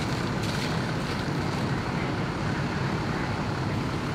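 Steady low rumble and hiss of fire engine pumps running and hose streams spraying water, with a brief brighter hiss about half a second in.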